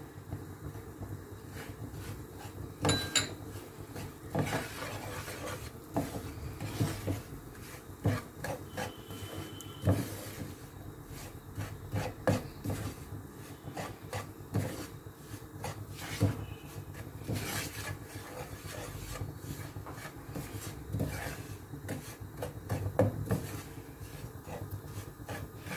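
Silicone spatula stirring and scraping a dry, crumbly mix of roasted flour, ghee and sugar around a nonstick frying pan: irregular rubbing, rasping strokes with occasional light knocks against the pan.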